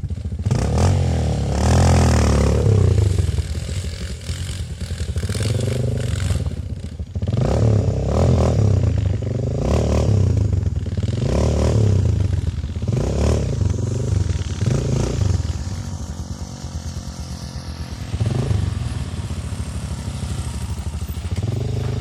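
Motocross bike engine revving up and easing off in repeated surges, then running at lower, steadier revs for the last few seconds.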